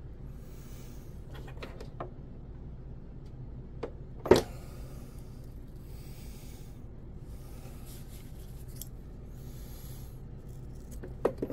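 Soft rubbing and handling noises from hand work on small parts, with a few light clicks and one sharper tap about four seconds in, over a steady low hum.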